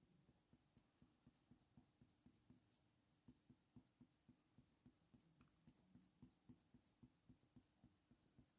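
Faint, quick strokes of a Faber-Castell Polychromos coloured pencil on hot-press watercolour paper, about four light scratches a second, laid down with very light pressure.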